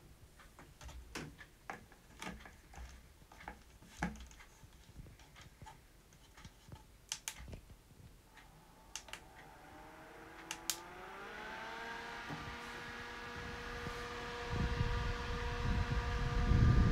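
Knocks and clicks of an Opolar small desk fan being handled, then its motor starting up about halfway through: a whine rising in pitch that settles into a steady tone as the rush of air builds. Near the end, the fan's airflow rumbles on the microphone.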